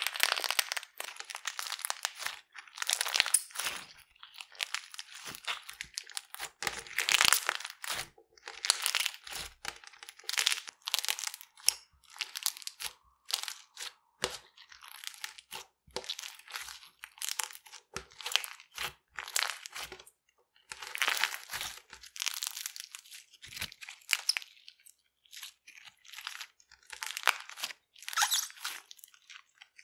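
Slime mixed with popping clay being squeezed and kneaded by hand, giving irregular bursts of crackling and crunching as the clay beads pop and the slime tears.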